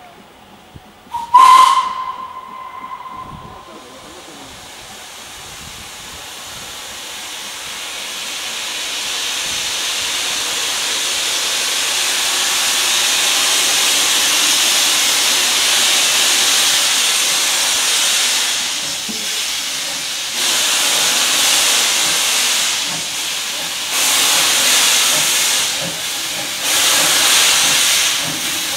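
Steam tank locomotive gives one short whistle blast, then the hiss of escaping steam builds and carries on as it starts away with its train. Over the last ten seconds or so the hiss swells and eases every few seconds.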